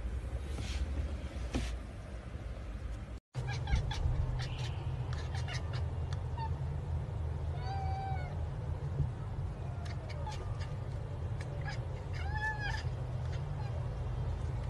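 Domestic cat meowing several times: short soft meows, with two clearer rising-and-falling meows about eight and twelve and a half seconds in, over a steady low hum.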